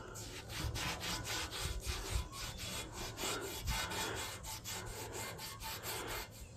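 A cloth rubbing quickly back and forth over the rusty steel end of an exhaust tailpipe coated in foaming rust cleaner, at about four or five strokes a second.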